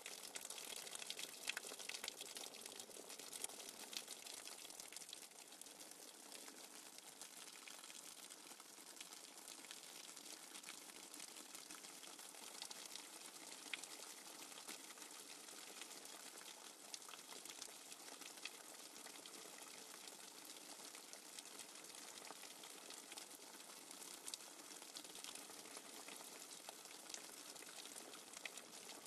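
Faint, steady rush of water with fine crackling, from a nature-sounds backing track.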